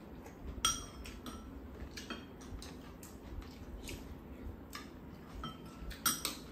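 Metal spoons and chopsticks clinking against ceramic bowls while eating: a few scattered sharp clinks with short ringing, the loudest about half a second in and again near the end.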